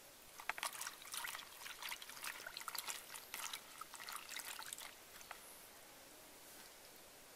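Water splashing and trickling in a plastic bowl as a hand washes chilies and kaffir lime leaves in it, a quick run of small splashes that stops about five seconds in.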